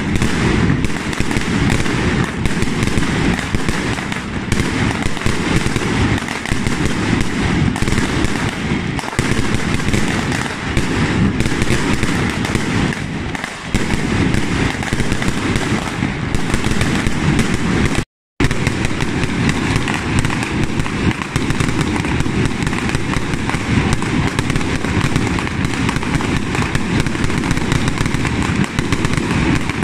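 A dense, nonstop barrage of firecrackers and aerial fireworks going off, a continuous rattle of bangs and crackles that never lets up. It breaks off for a split second about two-thirds of the way through.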